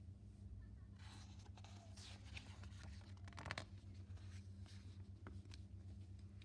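Faint rustling of a book's paper page being turned, with a few soft handling clicks, over a low steady hum.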